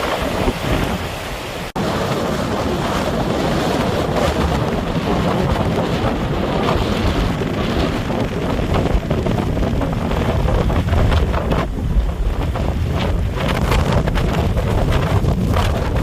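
Strong hurricane-force wind buffeting the microphone: a loud, steady blast of gusting noise, heaviest in the low end, with a momentary dropout about two seconds in.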